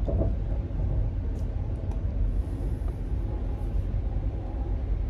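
Steady low rumble of a moving train, heard from inside the passenger carriage, with a few faint clicks.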